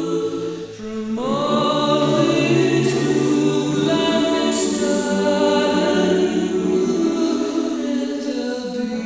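Choral music: a choir singing sustained chords, with a new chord swelling in about a second in.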